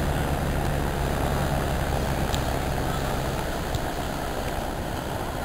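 A steady low engine hum over a constant rush of wind and surf noise. The hum stops a little over halfway through.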